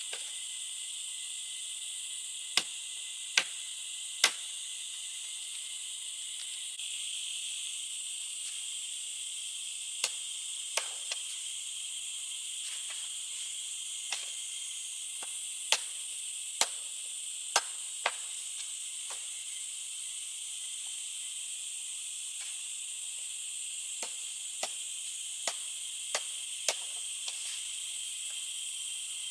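Steady high chirring of forest insects, with scattered sharp chopping strikes, singly and in short groups of two to four, as a blade strikes wood.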